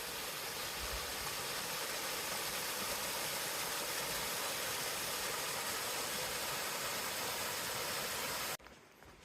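A steady, even rushing noise with no distinct tones, cutting off abruptly near the end.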